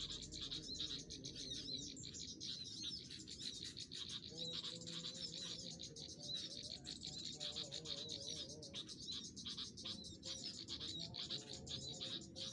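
Dense, continuous twittering of small birds: rapid high chirps and short trills overlapping one another without a break.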